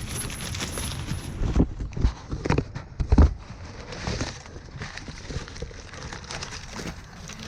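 Hands handling a new cam phaser and its packaging: rustling and crackling with a few knocks, the loudest about three seconds in.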